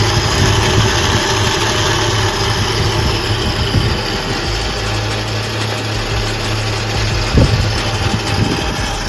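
Open Road Panther Series 2 13,000 lb electric winch running steadily under load, reeling in its line to pull a golf cart carrying two people: a steady low hum with a broad whirring over it.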